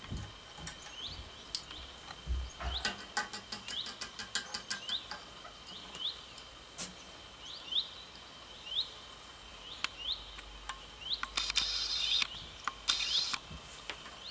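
Light clicks and taps of plastic Playmobil figures being moved about by hand, a quick run of them about three seconds in, and two brief rustles near the end. Behind them a short rising chirp repeats about once a second over a faint steady high tone.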